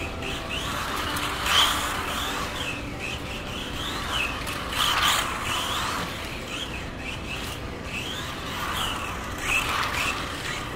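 Kyosho Mini-Z Buggy MB-010VE's brushless electric motor whining, rising and falling repeatedly as the small car speeds up and slows on concrete paving. It is loudest about a second and a half, five, and nine and a half seconds in.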